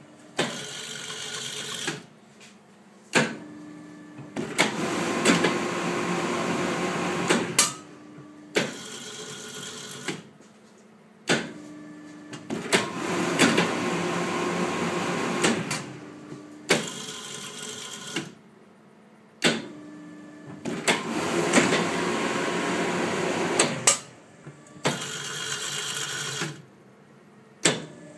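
Minipack FM76scA shrink-wrapping machine working in repeated cycles. Each cycle is a sharp clunk, a few seconds of loud steady running with a faint hum, another clunk, then a quieter pause, repeating about every eight seconds.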